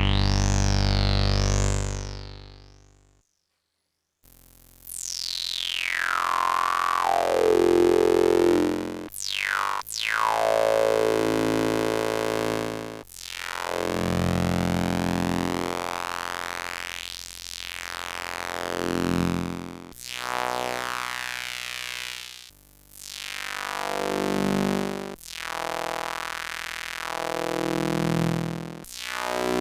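IK Multimedia UNO Synth, a two-oscillator monophonic analog synthesizer, playing long sustained notes with a resonant filter sweeping up and down through each one. A held low note fades out about three seconds in, and new notes follow every few seconds.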